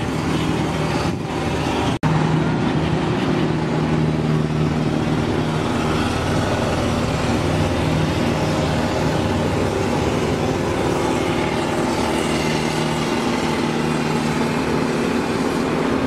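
Diesel engine of a Volvo pneumatic-tyred road roller running steadily at a constant speed, with a sudden brief break about two seconds in.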